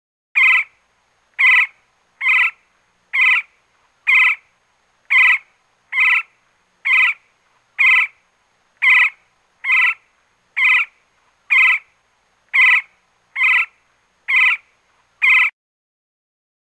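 A woodpecker giving a series of short, loud calls, about one per second, seventeen in all, stopping shortly before the end.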